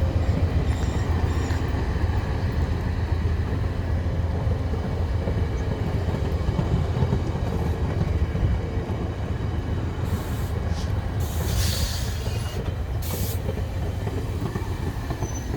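Via Rail passenger train pulling out of the station: a steady low rumble of the locomotive and cars rolling over the rails, with a few short hisses about ten to thirteen seconds in.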